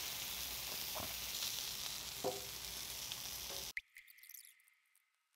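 Pork belly sizzling on a large cast-iron pot-lid griddle in a steady hiss, with a few light clicks of metal tongs and scissors on the meat. The sizzle cuts off abruptly about four seconds in, leaving a faint fading tone.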